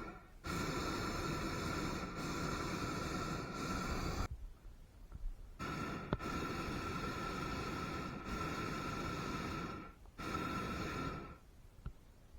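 Hot air balloon propane burner fired in three blasts, a steady roar with a whistling tone that starts and stops sharply: two long blasts of about four seconds each, then a short one of about a second.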